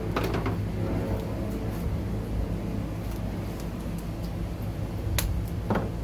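A few sharp clicks and knocks from handling wiring and connectors at an RV refrigerator's exterior access panel, two of them close together near the end, over a steady low hum.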